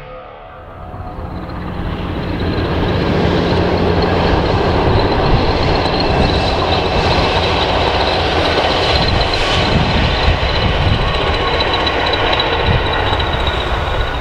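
Freight train passing, its wagons rolling by in a steady rumble that swells over the first couple of seconds and then holds, with a thin high whine running through it.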